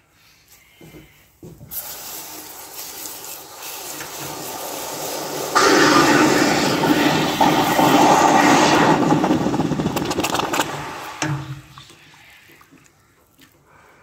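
Hot copper ingot quenching in a bucket of water, sizzling with crackles. The sound builds over a few seconds, jumps sharply louder about five and a half seconds in, then dies away a few seconds before the bar is lifted out with tongs.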